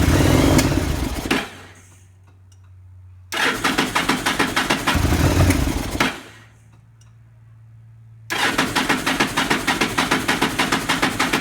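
Yamaha V-Star 1100's V-twin engine cranking on the electric starter in three separate tries of two to three seconds each, turning over with an even pulsing beat but not catching: the bike will not start.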